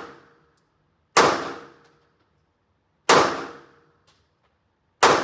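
Three pistol shots about two seconds apart, each a sharp crack with a short echoing tail off the walls of an indoor shooting range.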